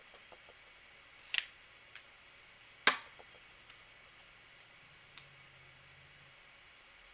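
Half a dozen light clicks and taps of small cosmetics being handled while mascara is applied, the sharpest about three seconds in.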